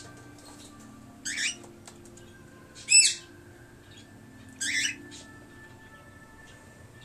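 Cockatiel giving three short calls about a second and a half apart, the middle one the loudest.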